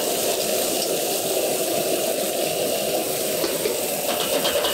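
Chopped green vegetables sizzling steadily in a hot wok as they are stir-fried and turned with a metal spatula.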